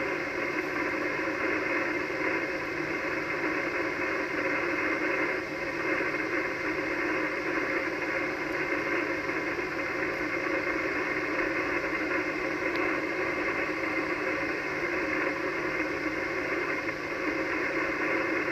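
Steady hiss and static from an Icom HF transceiver tuned to the 80-metre band, held to the narrow voice passband of a single-sideband receiver. It is band noise on an open frequency, with no station transmitting.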